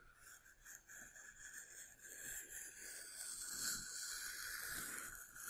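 Faint scraping of a knife blade shaving thin layers off a glued polystyrene-foam fuselage block, growing a little louder from about two seconds in.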